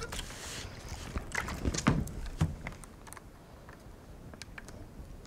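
Short hiss of steam from a steam iron at the start, then a few knocks and taps as the iron is set aside and a wooden tailor's clapper is put down on the pressed seam, followed by quiet while the clapper is held in place.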